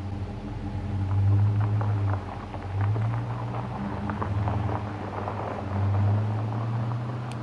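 Dodge Challenger R/T's Hemi V8 pulling away on a gravel road, its exhaust swelling and easing in about four surges as it accelerates, with gravel crackling under the tyres.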